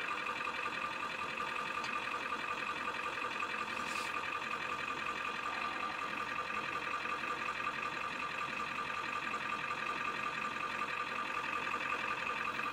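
Ford F-250 Power Stroke diesel engine idling steadily in neutral, heard from inside the cab.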